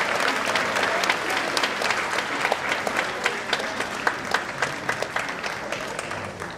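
Applause, many hands clapping at once, thinning to scattered claps and growing quieter toward the end.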